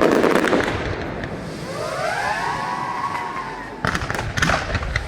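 Fireworks: a loud rush and crackle at the start, then a whistling firework that rises in pitch and holds, followed by several sharp bangs near the end.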